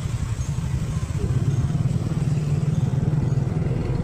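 Small motorcycle engine running steadily in traffic, with a low pulsing hum and road noise, getting a little louder about a second and a half in.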